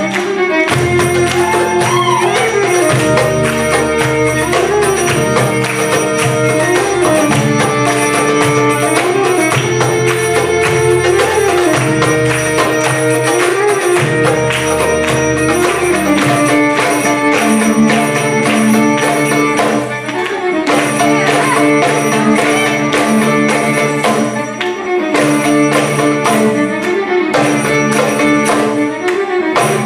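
Live band playing belly-dance music: a violin carries a sliding melody over a steady, repeating bass line and hand percussion.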